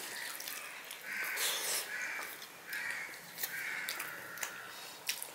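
Harsh bird calls, three times, over soft clicks of a hand mixing rice and curry on a steel plate.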